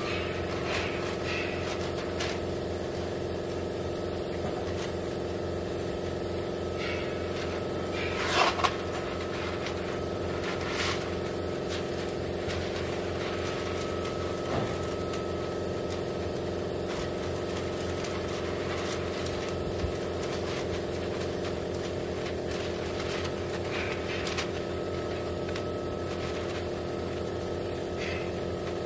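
Masking paper crinkling and rustling as it is pulled and pressed around a pickup's tailgate, loudest about eight seconds in, over a steady motor hum.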